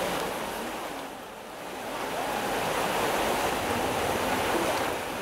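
Muddy floodwater of a swollen river rushing steadily past, an even rushing noise that dips briefly about a second in.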